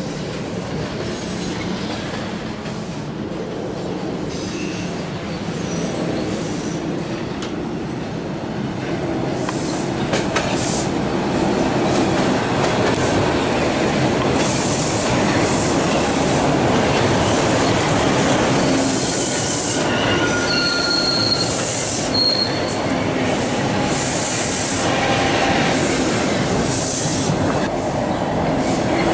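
Toronto subway train running through a crossover and curve, getting louder as it passes close about halfway through, with rumbling and clicking over the switches and repeated high-pitched wheel squeal in the second half.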